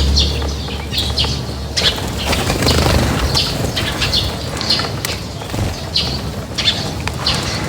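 A flock of small birds chirping in many short, repeated calls, with wings flapping among them.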